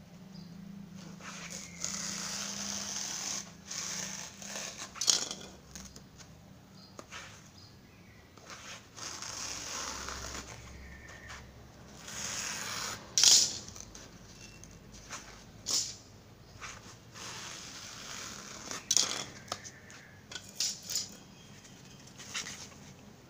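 Utility knife blade drawn through a dense foam sponge sheet along a steel ruler: scratchy rasping strokes lasting a second or more, with a few sharp clicks between them.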